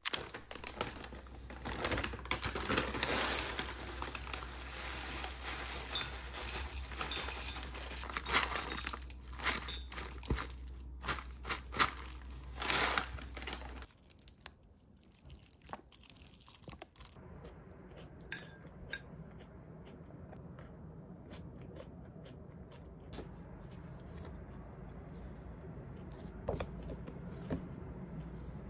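Rustling and crinkling handling noises, something like paper or packaging being handled, thick for about the first half. Then an abrupt change to a quieter steady background with only occasional small clicks.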